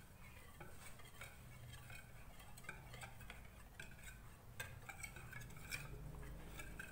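Wire whisk beating a flour-and-egg batter in a plastic bowl: faint, irregular clicks and scrapes of the wires against the bowl.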